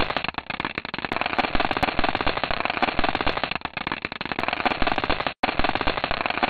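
Sonified spacecraft data of tiny dust particles striking NASA's Stardust probe during its Comet Tempel 1 flyby: a dense, rapid crackle of sharp clicks, with a momentary break about five seconds in.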